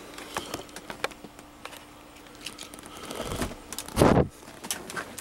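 Handling noise from a handheld camcorder being moved around inside an SUV's cabin: scattered clicks and rubbing, with one louder brief rush of noise about four seconds in.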